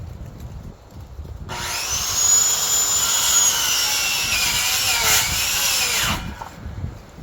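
A power saw starts about a second and a half in, runs with a high whine that sags a little as it cuts into wood, and stops abruptly after about four and a half seconds.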